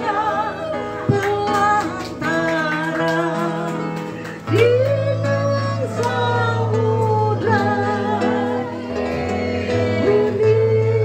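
A woman sings a slow melody into a microphone, holding notes with vibrato, accompanied by a plucked guitar.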